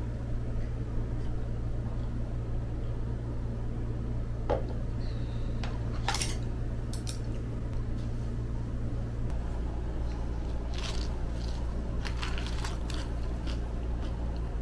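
Scattered light clicks and clinks of a fork and dishes on a tray-top meal over a steady low room hum. The loudest clink comes about six seconds in, and there is a cluster of small clicks toward the end as the fork picks up salad.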